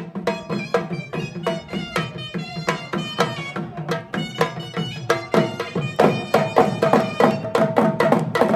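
Traditional folk dance music: a dhol drum beaten in a fast, steady rhythm, with a melody instrument holding long notes over it.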